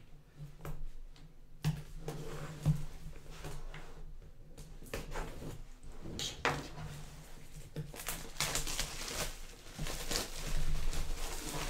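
Cellophane wrap being slit with a pocket knife and peeled off a laptop's cardboard box: scattered crinkles and clicks, growing busier and louder in the last few seconds.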